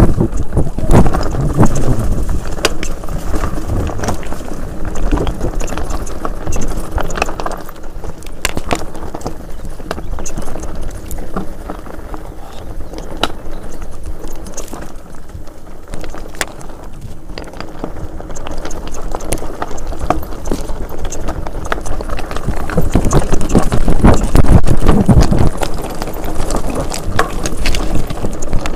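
Enduro mountain bike riding down rocky singletrack: tyres crunching over loose stones, with a constant rattle and clatter of the bike over the bumps. Low wind rumble hits the helmet or handlebar microphone, heaviest at the start and again near the end.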